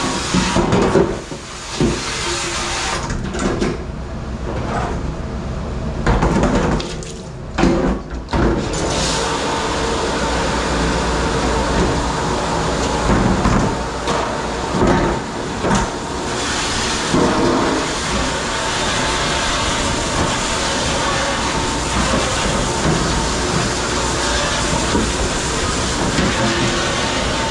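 Water rushing in a commercial dish pit, with dishes and pans knocking and clattering. From about nine seconds in, a steady rush of spray takes over.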